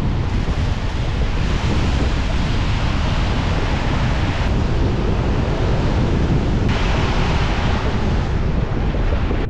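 Steady rush of tyre and wind noise from a car driving along railroad tracks inside a road tunnel, with wind buffeting the microphone. The hiss thins abruptly about four and a half seconds in and comes back about two seconds later.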